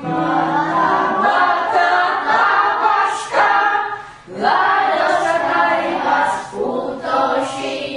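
A group of voices singing unaccompanied, in phrases with short breaks between them.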